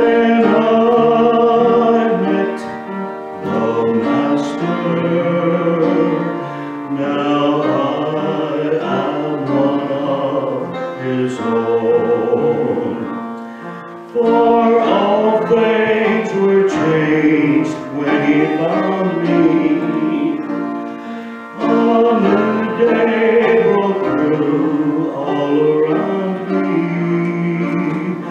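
A man singing a gospel solo into a microphone, with instrumental accompaniment, in phrases held over sustained notes. His nose is running from allergies as he sings.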